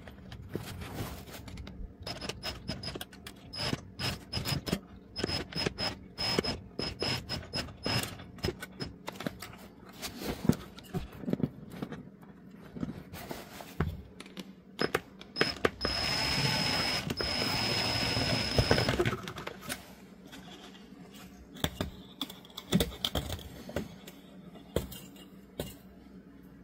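Irregular ratcheting clicks from a cordless drill's chuck and gearing being turned slowly by hand to wind copper wire onto a loudspeaker voice-coil former, with a faint high squeak on and off. About 16 seconds in comes a louder rasping stretch lasting about three seconds.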